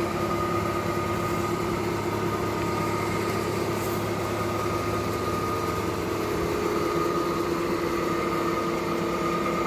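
Machinery running steadily with a constant hum and a few fixed tones, unchanging throughout.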